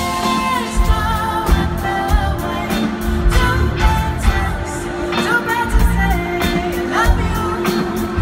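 Live pop band with a female lead singer singing into a handheld microphone over the band, with a steady drum beat and electric guitar.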